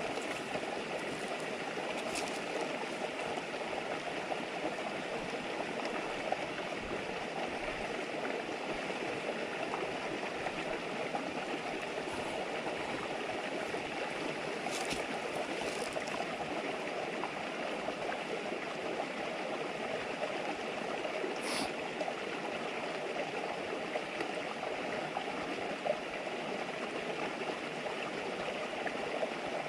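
A shallow river flowing steadily with an even murmur, with a few sharp pops from a wood campfire burning close by, most clearly about 21 seconds in.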